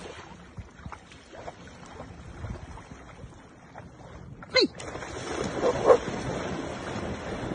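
Dogs splashing through shallow water, after a quiet wash of water for the first few seconds. About four and a half seconds in, a dog gives one short yelp that falls sharply in pitch. A couple of barks come near the six-second mark.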